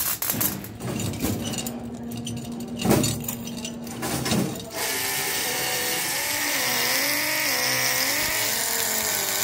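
Light metallic clicks and clinks of brass spoke nipples and steel spokes being handled and fitted into a chrome wheel rim. About halfway through, a steady machine-like drone starts, its pitch wavering up and down, and it covers the handling.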